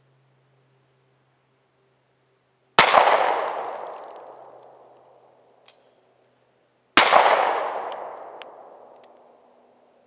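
Two shots from an H&K USP Fullsize 9mm pistol, about four seconds apart, each a sharp crack followed by a long echo that dies away over about three seconds. A faint click falls between them.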